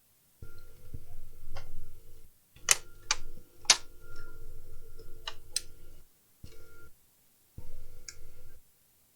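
Sharp plastic clicks and taps from laptop parts being handled and fitted together, about five of them with the loudest in the middle, over a steady electrical hum that cuts in and out.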